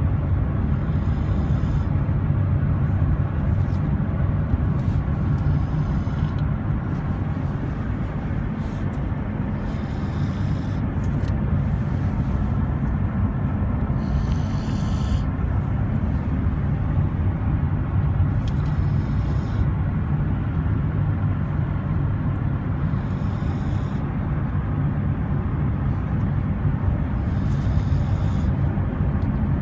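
Golden retriever snoring: a steady low rumble, with a brief hissing breath about every four to five seconds.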